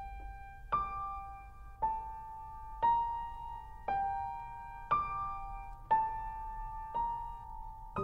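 Background music: a slow piano melody of single notes, about one a second, each left to ring and fade.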